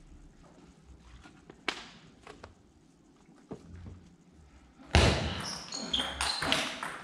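Table tennis ball clicking sharply off paddles and table during a rally. About five seconds in, a much louder, noisier sound lasting nearly two seconds comes as the rally ends.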